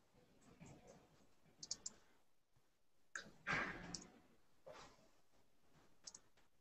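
Faint clicks of a computer mouse in short clusters of two or three, about two seconds in, again around three to four seconds, and near the end. A brief soft rustle about three and a half seconds in is the loudest sound.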